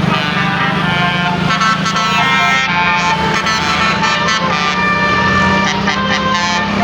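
Indonesian bus "telolet" multi-tone musical horn playing a tune, its notes stepping from one pitch to the next over a steady low hum.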